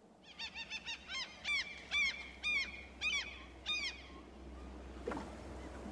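A bird calling: a quick run of five short calls, then about six longer calls, each rising and falling in pitch, roughly half a second apart.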